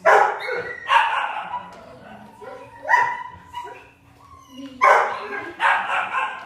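Dogs barking, five loud barks spaced irregularly about a second or two apart.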